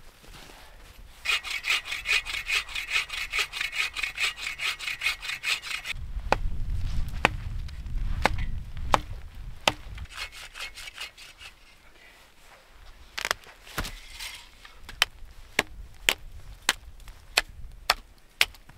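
A hand saw cutting a tree branch in fast, even strokes, about four a second, for about five seconds. This is followed by a low rumble and then a series of sharp cracks of dry branches snapping, coming about two a second near the end.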